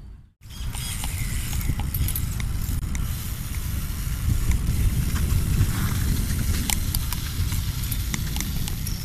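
Wind buffeting a camera microphone: a loud, fluttering low rumble with scattered light clicks and ticks over it.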